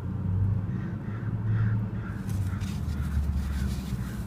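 A run of five or six short, harsh bird calls in quick succession, like cawing, over a steady low rumble.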